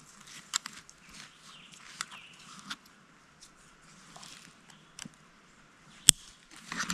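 Scattered sharp clicks and light rustling over a faint hiss, with one louder click about six seconds in.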